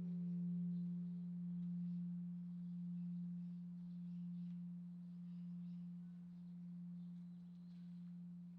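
Long fading hum of a large bronze Korean Buddhist temple bell (beomjong) after a strike: one deep tone that swells and fades in a slow pulse about every second and a half. Its higher overtones die away about a second in, leaving only the low hum.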